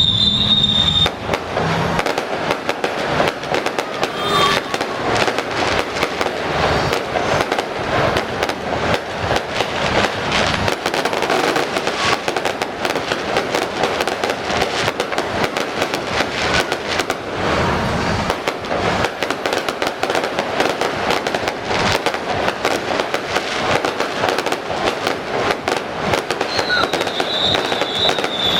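Aerial fireworks display: a dense, continuous crackling of many small pops and bursts. A high, wavering whistle sounds briefly at the start and again near the end.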